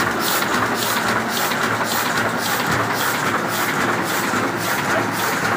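Heidelberg GTO 46 single-colour sheetfed offset printing press running and printing, a steady mechanical clatter with a fast, even rhythm of clicks.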